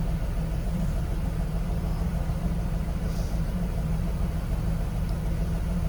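A steady, low engine hum, like a vehicle engine idling.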